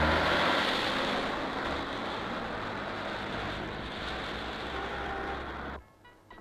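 City street traffic with a bus's engine running as it passes, loudest at first and slowly easing off; the din cuts off abruptly near the end, leaving quiet room tone.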